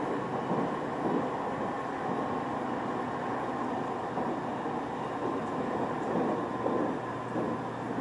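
Train running between stations, heard from inside the carriage: a steady rumble of wheels on rail with a constant low hum, no clear wheel-joint clicks.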